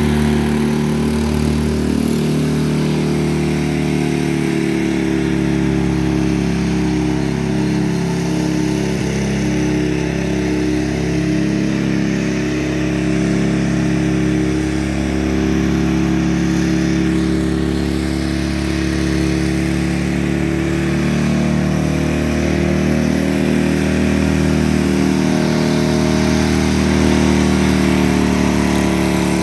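A 1996 Cub Cadet 1430 lawn tractor's engine running steadily as the tractor is driven along.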